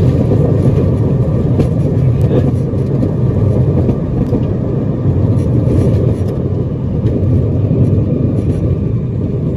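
Steady low rumble of a private jet rolling down the runway after landing, heard from inside the cockpit. It eases slightly as the aircraft slows.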